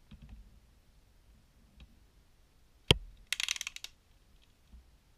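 Hard plastic 3D-printed doll parts and a metal clamp being handled and set down: a few faint clicks, one sharp knock about three seconds in, then a quick rattle of clicks lasting about half a second.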